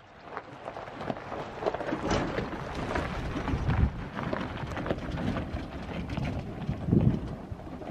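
Tyres of a Toyota 4Runner crunching and popping over a gravel and rock dirt road, with a heavier low thump about four seconds in and another about seven seconds in as the truck jolts over the rough track.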